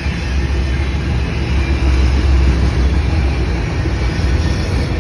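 Freight train rolling past: a steady low rumble of cars and wheels on the rails.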